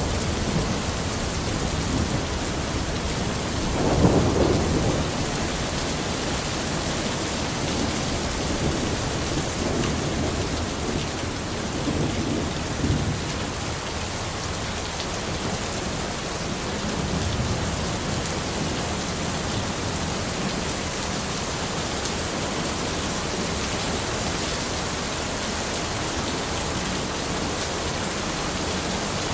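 Steady rain falling in a forest, with low rolls of thunder rumbling up a few times, the strongest about four seconds in.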